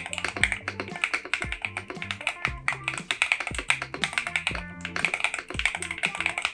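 Rapid typing on a mechanical keyboard fitted with stock Akko V3 Cream Yellow Pro linear switches, a dense run of quick key clicks, over background music with a steady bass line.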